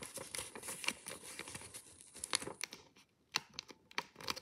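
Sheet of coloured paper being folded and creased by hand: a run of crinkles and small crackles, with a short lull about three seconds in.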